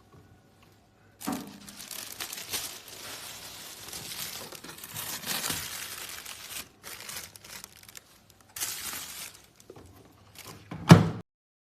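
Plastic crinkling and rustling as it is handled, in stretches with short pauses, then one sharp knock near the end.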